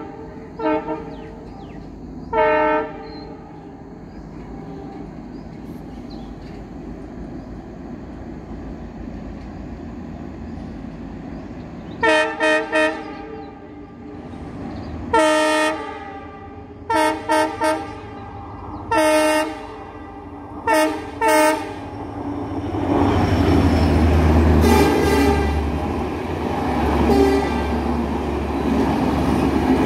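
Horn of a WDP-4D diesel locomotive sounding: one blast a couple of seconds in, then a string of short blasts, several in pairs, over about ten seconds. From about 23 s the loud rumble of the diesel locomotive and its passenger coaches passing close by on the rails takes over.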